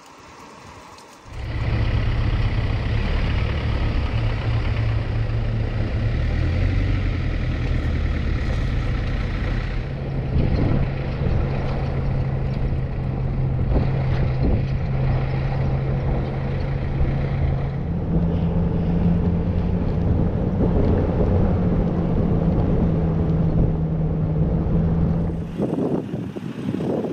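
Off-road 4x4 driving, its engine a steady drone that starts about a second in and shifts up in pitch a couple of times along the way. The low engine note drops away near the end.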